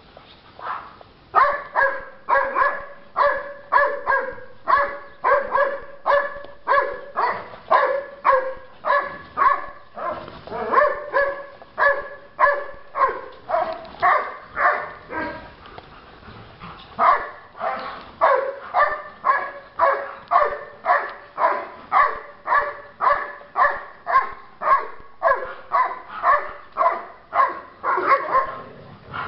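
Dobermann barking repeatedly in play, about two barks a second. The barking pauses for a couple of seconds around the middle, then carries on steadily.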